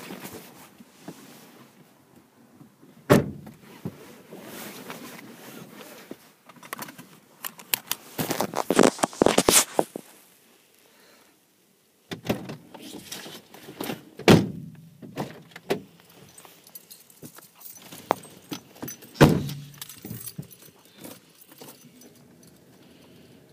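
Handling and rustling noise inside a car, with scattered clicks and a few sharp knocks and thumps, the loudest about three, fourteen and nineteen seconds in; the sound drops out for about two seconds near the middle.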